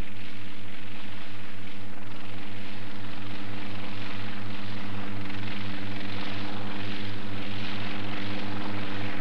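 Helicopter in flight: a steady engine drone with a fast, even beat from the rotor blades.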